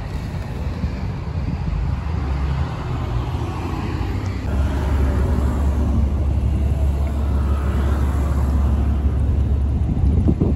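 Road traffic on a busy street, cars and other vehicles passing, with a low rumble that grows louder about four and a half seconds in.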